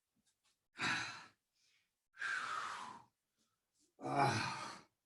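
A person breathing hard, winded after a set of push-ups: three loud, sighing breaths about a second and a half apart, the last with a little voice in it.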